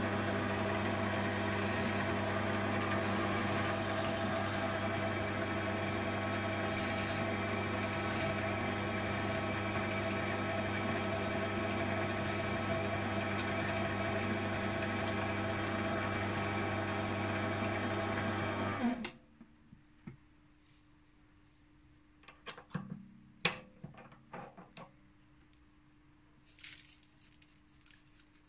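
Sieg C3 mini lathe running at steady speed, a motor whine with hum, while a file takes the sharp edge off the spinning brass workpiece. The motor stops abruptly about two thirds of the way through, followed by a few light clicks and knocks.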